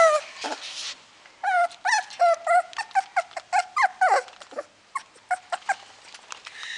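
Puppy whining in a quick series of short, high calls, about two or three a second, several sliding down in pitch, after a loud opening yelp.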